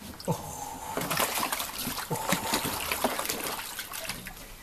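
Water splashing and trickling in a plastic tub as a newborn calf is washed by hand: a quick, irregular run of splashes and drips.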